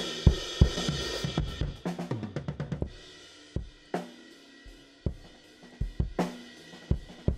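Multitrack drum kit recording playing back: kick, snare and cymbals, with the kick drum running through a Distressor-style compressor plugin on its Nuke ratio, squashed by about 14 dB of gain reduction. There is a quick run of hits about two seconds in, then sparser single hits.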